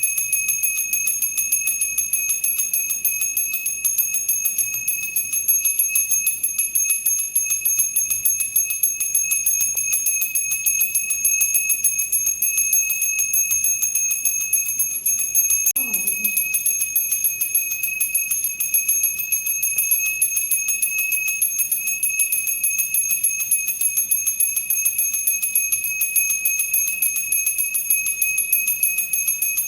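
Temple bell rung continuously with quick repeated strikes, so its high ringing tones never die away between blows.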